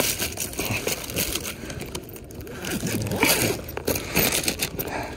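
Rummaging and handling: irregular crinkling, scraping and small clicks of things being picked through and taken out.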